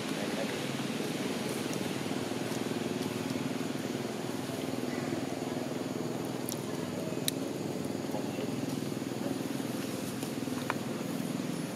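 Steady low outdoor background hum, with a few faint ticks and one brief high chirp near the end.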